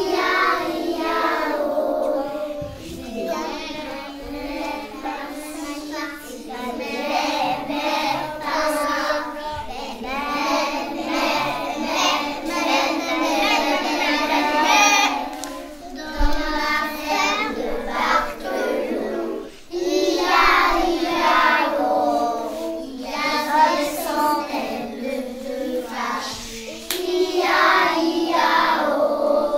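Young children singing a song together, with a brief break about twenty seconds in.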